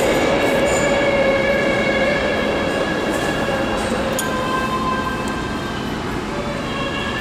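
New York City subway train running through the station: a steady rumble under a whine of several held high tones, slowly fading.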